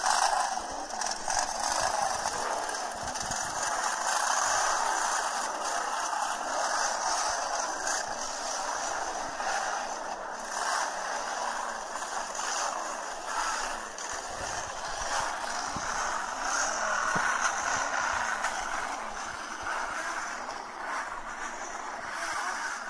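Engines of a group of motorcycles riding by, played from a video through a smartphone's small speaker: a steady, thin-sounding engine noise with little low end.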